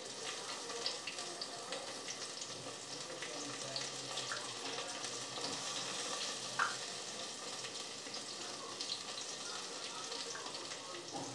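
Soft scattered clicks and taps of a small knife cutting a peeled mango into pieces over a plate, under a steady faint hiss. One sharper tap comes about six and a half seconds in.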